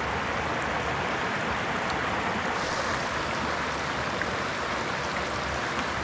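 Steady rushing of stream water flowing over rocks, with a few faint ticks.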